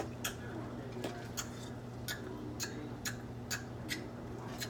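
Light, sharp clicks, roughly two a second at slightly uneven spacing, over a steady low hum.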